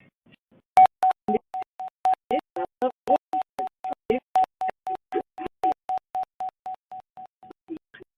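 Electronic warning beeps: a single mid-pitched tone repeating rapidly, about four beeps a second. The beeping starts about a second in and stops near the end.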